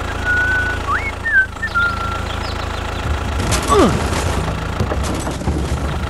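Steady low tractor-engine drone as a small model tractor pulls a loaded trailer through loose dirt, with whistled bird chirps in the first two seconds. Past the middle, a falling whistle and two short bursts of hiss.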